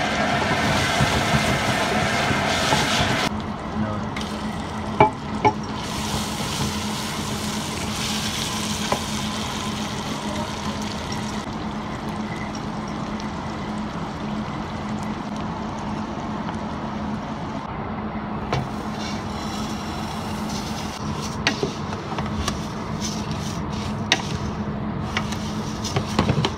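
Sliced onions frying and sizzling in oil in a stainless steel pot, stirred with a wooden spoon, with a couple of sharp knocks of the spoon against the pot about five seconds in. Near the end, dry vermicelli is stirred with the spoon, giving scattered clicks. A steady low hum runs underneath.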